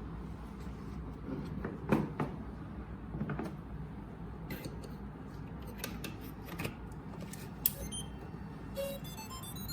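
Clicks and knocks of a gimbal camera being taken off and fitted onto a quick-release connector, the loudest about two seconds in and near the end, over a steady low hum. A brief run of short electronic tones sounds just before the end.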